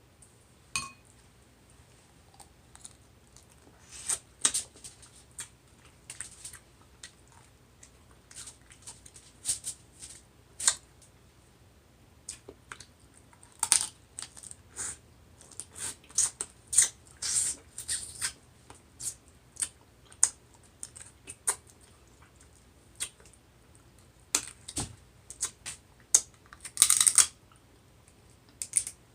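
Close-miked eating of a seafood boil of shellfish: irregular short cracks, clicks and smacks, with a longer rustling sound near the end.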